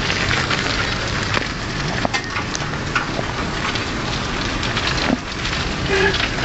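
Steady crackling, rattling noise of an open cart rolling over pavement, with a few sharp knocks about two, three and five seconds in.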